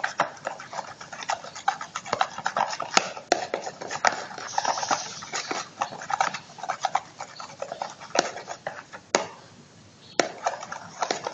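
A utensil stirring a thick glue and dish-soap slime mixture in a small bowl: irregular clicks and scrapes against the bowl, with a brief pause about nine seconds in.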